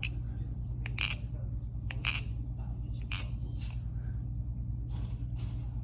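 Packaging being handled and unwrapped during an unboxing: short crinkly crunches about once a second, over a steady low hum.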